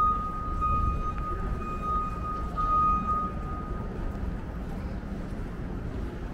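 A vehicle's reversing alarm beeping, the same high tone pulsing again and again, then stopping about three seconds in. Steady street-traffic rumble runs underneath.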